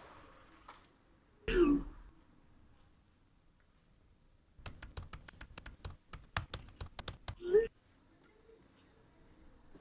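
A messaging app's incoming-message alert, a short falling tone about a second and a half in. Then typing on a laptop keyboard for about three seconds, ending with the rising swoosh of a message being sent.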